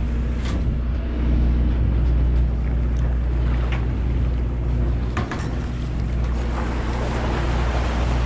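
Fishing boat's engine running steadily with a low hum, under wind on the microphone and water splashing along the hull.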